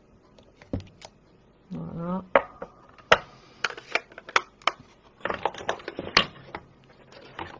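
A run of sharp plastic clicks and taps: a clear acrylic stamp block and a plastic ink pad case being handled and set down on a desk. The clicks come thickest around five to six seconds in.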